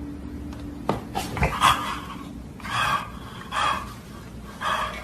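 A dog breathing in short, noisy puffs, about four of them, with a faint hum and a single click in the first second or so.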